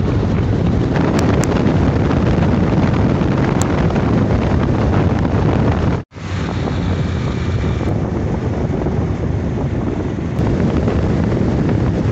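Heavy wind noise buffeting the microphone of a motorcycle riding at highway speed, a steady low rush. It cuts out for an instant about halfway through and resumes.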